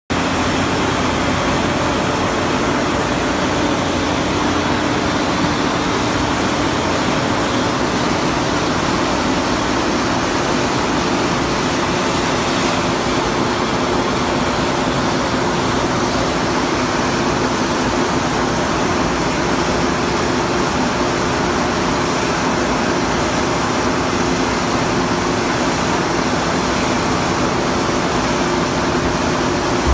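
1998 L&M PS 150-7-404 HC paper roll cut-off saw running with no roll in it: a steady mechanical hum that does not change as the saw arm swings down.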